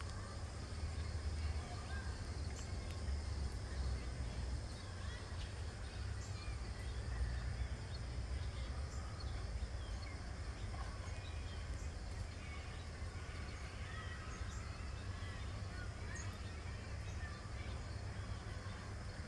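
Outdoor ambience: a steady low rumble with scattered faint, short bird chirps and calls throughout.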